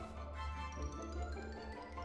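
Background music: quick struck notes ringing over a steady low bass.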